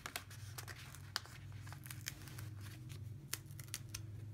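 Paper sticker sheet being handled as a sticker is peeled off its backing: faint crinkling with many small scattered clicks.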